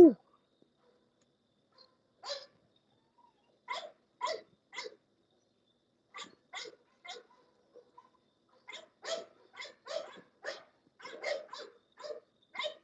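Dogs barking: short, sharp single barks, about seventeen of them, starting about two seconds in and coming in quicker clusters in the second half.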